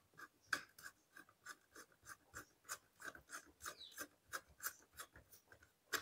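Small screwdriver tightening a wire under a socket's terminal screw in a plastic switch board: a run of faint short scrapes and clicks, about three or four a second.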